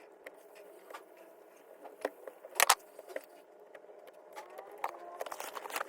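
Scattered small clicks, taps and rattles of handling work, with a sharper double click about two and a half seconds in.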